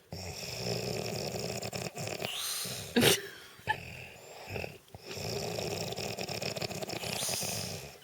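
A sleeping man snoring loudly: two long, rattling snores, with a brief sharp sound between them about three seconds in.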